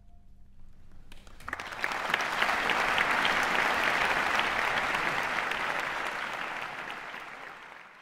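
Audience applauding at the close of a performance: after about a second of quiet the clapping starts, swells quickly into dense applause, and fades away near the end.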